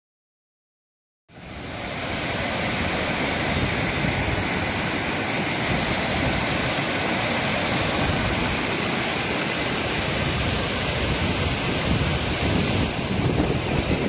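Stream in monsoon spate rushing over rock slabs and shallow cascades: a dense, steady wash of water noise that fades in about a second in, after silence, and shifts slightly near the end.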